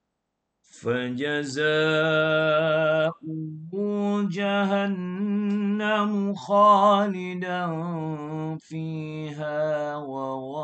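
A man reciting the Qur'an in Arabic in a slow, melodic tajweed chant, drawing out long held notes with brief breaths between phrases. The recitation starts about a second in.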